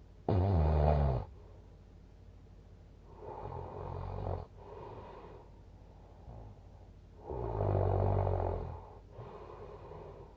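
A sleeping person snoring in a slow rhythm: two loud, rattling snores, the first just after the start and the second about seven seconds in, with quieter snoring breaths between them.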